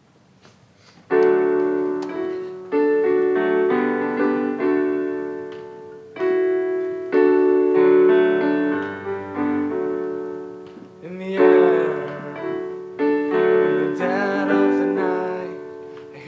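Piano playing a slow introduction: chords struck about every one to two seconds and left to ring and fade, starting about a second in.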